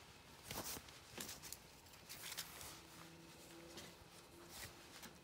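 Faint rustles and light clicks of hands handling string lights and their battery box inside a tent, with a faint low steady hum coming in about halfway through.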